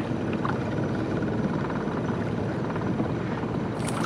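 Small outboard motor running steadily at trolling speed on a 12 ft aluminium boat, with a brief splash near the end as a perch is lifted out of the water.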